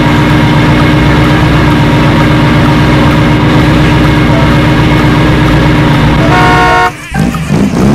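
A vehicle sound effect: a loud, steady, unchanging drone, with a short horn toot about six and a half seconds in, then a brief dip.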